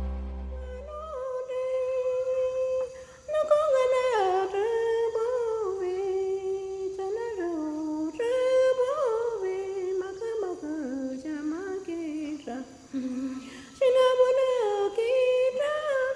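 A single voice humming a slow, wandering melody unaccompanied, with held notes and short breaks about three seconds in and again a few seconds before the end. A low musical drone stops about a second in.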